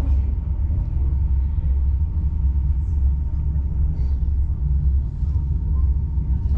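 Steady low rumble inside a passenger coach of a locomotive-hauled train pulling away from a station, with a faint steady high tone above it.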